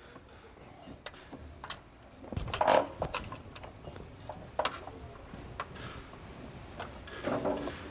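Handling noises from fitting an A/C compressor onto its engine bracket: irregular metal clicks and knocks, with the loudest clunk about two and a half seconds in.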